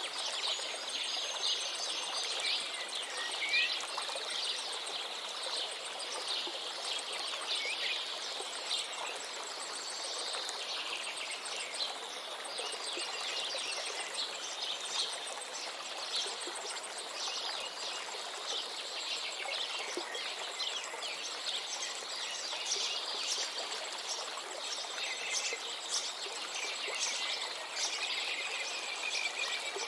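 A river flowing steadily, with many small birds chirping and calling over it throughout; a thin high buzz, like an insect, runs beneath.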